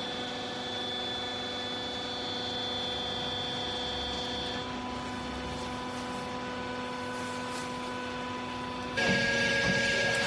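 Hydraulic baler's electric motor and pump running, a steady hum made of several constant pitches; about nine seconds in it turns suddenly louder and noisier.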